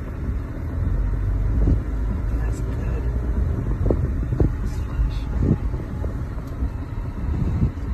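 Steady low rumble inside a car moving slowly through heavy rain on a flooded street, with the hiss of rain and water on the car.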